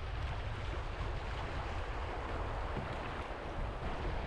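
Steady rush of river water, with wind rumbling on the microphone.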